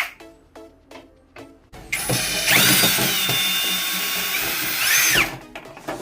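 A power drill runs for about three seconds, spinning up about two seconds in and winding down near the end, over background music.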